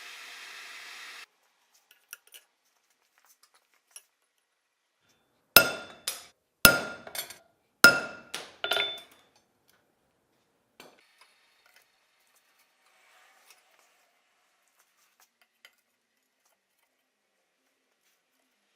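A hammer striking metal six or seven times in quick succession, each blow ringing with a bright metallic tone. The strikes come about halfway through, with a few faint ticks before and after.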